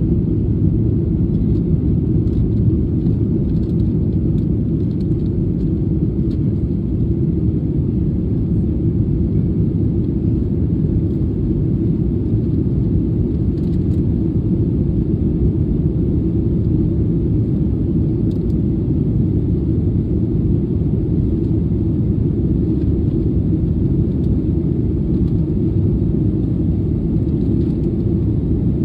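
Steady low rumble of a Boeing 737-800's CFM56-7B jet engines and rushing air, heard inside the passenger cabin during the climb after takeoff.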